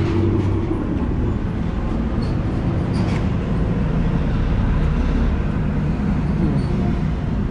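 Road traffic going by: a steady low engine rumble from passing vehicles.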